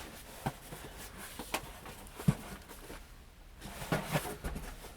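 Boxed vinyl figures and their cardboard packaging being handled: a few light knocks and taps, one sharper knock a little past two seconds in, and some rustling near the end.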